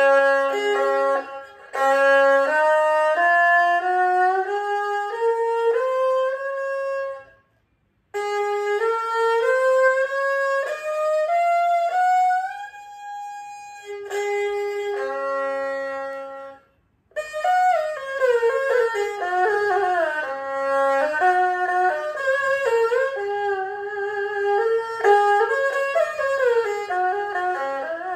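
An old rosewood erhu, fitted with a wooden qianjin in place of a string-wound one, is played with the bow: a melody with sliding notes in three phrases. Two brief silences break it, about a quarter and about three fifths of the way through. With the new qianjin its tone is now quite good.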